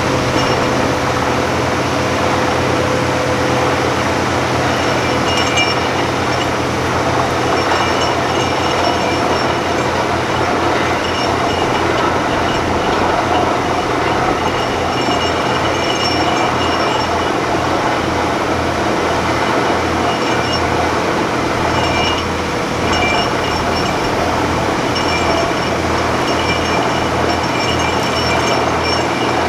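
Truck-mounted borewell drilling rig running steadily while drilling a borehole: a loud, even machine noise with a low hum under it and short high ringing notes coming and going.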